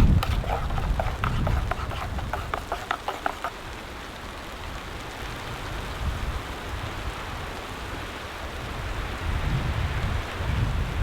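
Blizzard wind gusting, with low rumbles at the start and again near the end over a steady hiss. A quick run of small ticks patters through the first three seconds or so.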